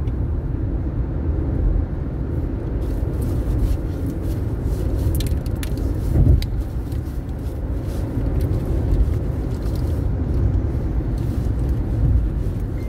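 Car cabin noise while driving: a steady low rumble of engine and tyres on the road, with one brief louder thump about six seconds in.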